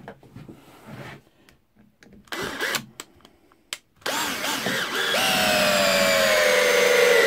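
Einhell TE-CD 18/40 cordless drill-driver driving a screw into wood. After a few light handling clicks, the motor starts about four seconds in and whines steadily, its pitch sinking slowly as the screw bites deeper, then winds down as it stops at the very end.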